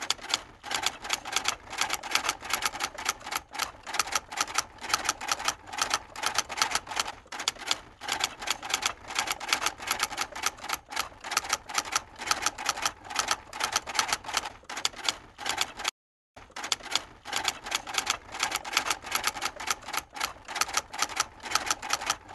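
Rapid, continuous typing on keys, many clicks a second, with a short stop about sixteen seconds in.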